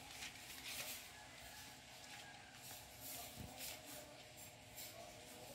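Shih tzu puppies' claws scratching and pattering on the floor as they scuffle, faint and irregular, with a soft thump about three and a half seconds in.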